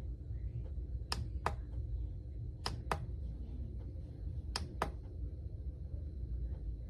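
Three pairs of sharp clicks, about a second and a half apart, over a faint steady low hum.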